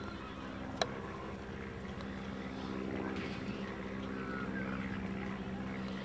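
A steady machine-like hum, even and unchanging, with a single sharp click just under a second in.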